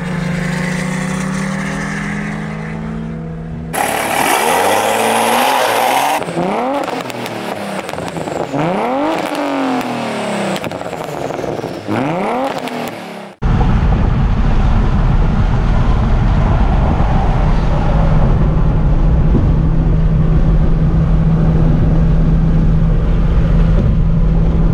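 Cars' engines running steadily side by side, then several seconds of louder, noisier sound with repeated rising and falling sweeps. A sudden cut about thirteen seconds in leads to a loud, steady, deep engine drone heard inside a car.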